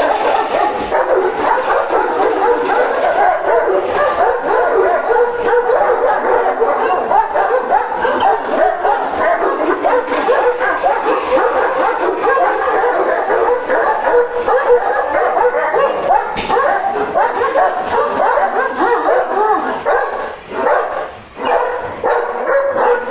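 Several Kangal dogs barking at one another without pause in a dominance squabble. The barking thins out about twenty seconds in.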